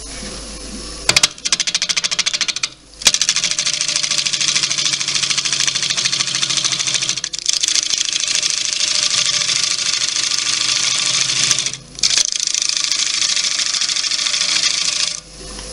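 Turning tool cutting a spinning wet cherry-wood bowl blank on a wood lathe, a loud hissing cut that peels off long ribbons of shavings. It starts about a second in as a fast rattle, then runs in several passes broken by short pauses.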